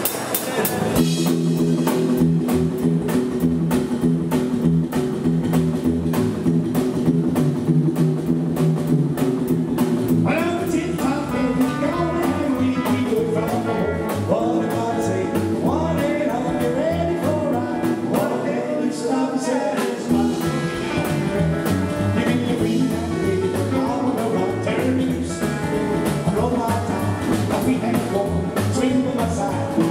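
Live rockabilly band playing: electric lead guitar, acoustic rhythm guitar, double bass and drums. A male lead vocal comes in about ten seconds in.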